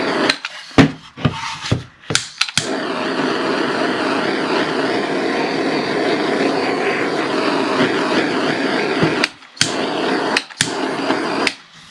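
Small handheld gas torch burning with a steady hiss while its flame is passed lightly over a 3D-printed plastic part to burn off fine stringing. It cuts in and out in short spurts with clicks over the first couple of seconds, then runs steadily, dropping out briefly a few times near the end.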